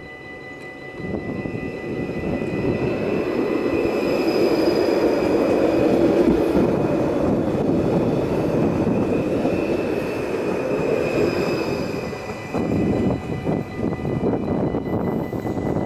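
Stadler FLIRT electric multiple unit passing over a level crossing: a rumble of wheels on the rails that builds over the first couple of seconds, is loudest around the middle, and drops off as the train clears about twelve seconds in.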